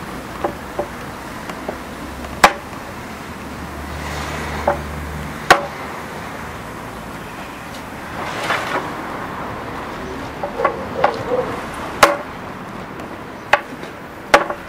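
Hammer blows on the iron tyre of a wooden cart wheel: about a dozen sharp, irregular strikes, a few much louder than the rest, as the tyre is driven onto the wheel.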